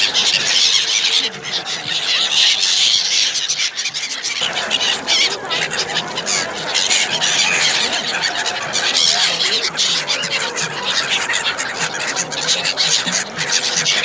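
A flock of gulls calling, many high, shrill calls overlapping in a continuous din.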